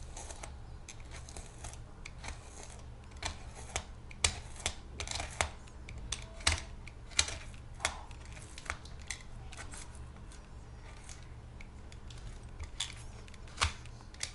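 Utility knife blade sawing through a sneaker's molded foam midsole: irregular scraping strokes with sharp crackling clicks as the blade catches and tears the foam. The blade is dull and drags.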